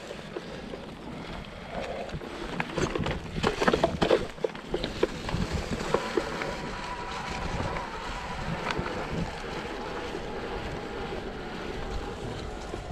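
Electric mountain bike riding a dirt trail: tyres rolling over the ground with the bike rattling, a cluster of knocks and clatter about three to five seconds in, and wind on the microphone.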